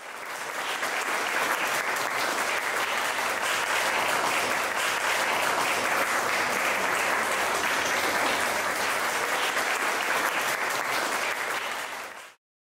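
Small audience applauding steadily, a dense patter of many hands clapping; the applause cuts off suddenly near the end.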